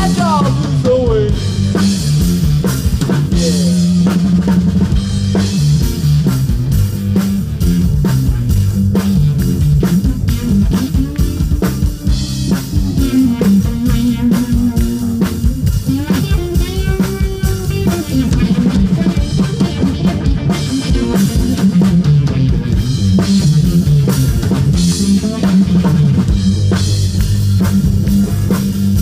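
Live rock band playing loudly through a PA: electric guitar and a drum kit over heavy, steady low notes.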